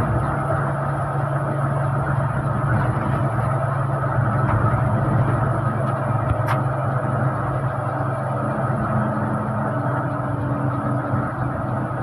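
Intercity bus on the move, heard from inside the cabin: a steady low engine hum over road noise, with one sharp click about six and a half seconds in.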